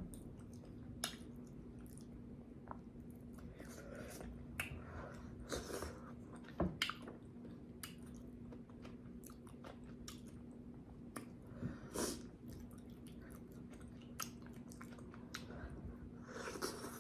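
Close-up chewing and wet mouth smacks of someone eating boiled potatoes and corn, in short scattered bites and clicks, over a faint steady hum.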